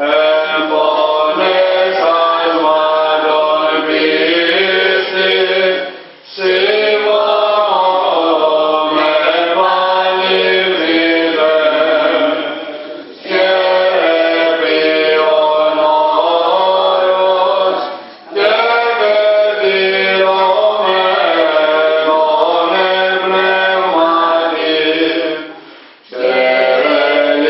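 Greek Orthodox Byzantine chant sung at the lectern, the melody moving in long phrases over a steady low held note. Four short breaks between phrases.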